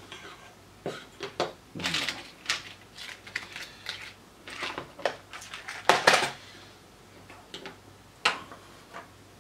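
Small hard plastic and metal parts clicking, tapping and rattling as they are handled and set down on a cutting mat, with a clear plastic parts box among them. The taps come irregularly, with a louder clatter about six seconds in.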